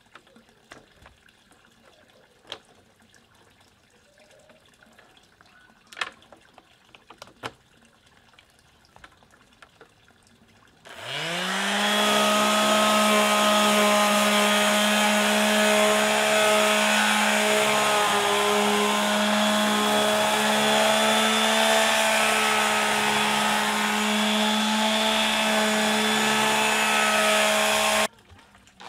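A small electric palm sheet sander is switched on about eleven seconds in. Its motor spins up to a steady hum as it gives deck boards of pallet wood a light finishing pass. It cuts off abruptly near the end and starts spinning up again. Before it starts there are only a few faint clicks.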